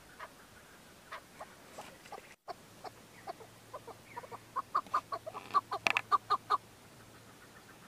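Chukar partridge calling: a run of short clucking 'chuck' notes that come faster and louder, peaking and breaking off about three-quarters of the way in, after a few scattered quieter notes.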